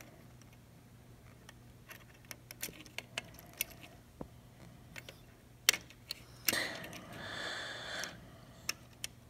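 Small plastic gears clicking and tapping as they are fitted onto the metal axles of a toy plastic gearbox, a scattering of light clicks with a louder snap about halfway through, then about a second and a half of scratchy noise.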